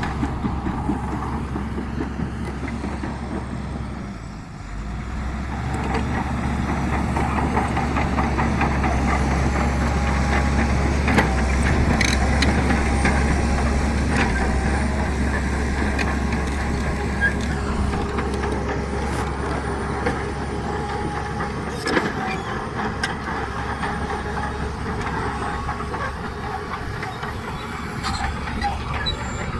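Shantui DH17C2 crawler bulldozer's diesel engine running under load, with the clank and clatter of its steel tracks. The engine eases off briefly about four seconds in, then builds back up and is loudest around the middle, with occasional sharp metallic knocks.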